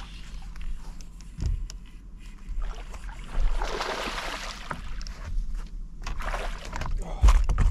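Water sloshing around a bass boat, with a longer rush of splashing about three and a half seconds in as a hooked bass fights near the surface, and a couple of knocks near the end.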